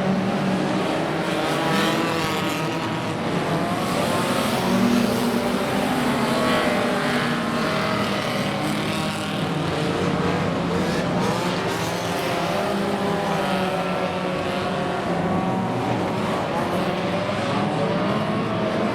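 Several banger racing cars' engines revving together, their pitches rising and falling as the drivers accelerate and lift off.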